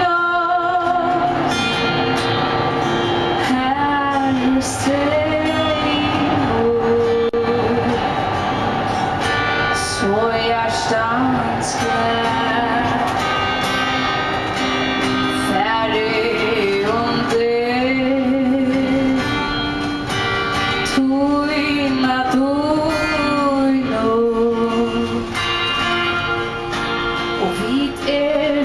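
A woman singing with her own acoustic guitar accompaniment, an unbroken song with long held notes.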